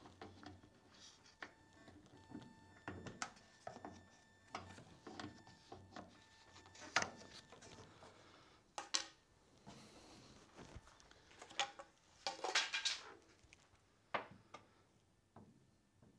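Faint, scattered clicks, taps and scrapes of a yardstick being poked into a Porsche's front hood latch to release it, the loudest cluster a little past the middle, with the hood lid unlatched and lifted open.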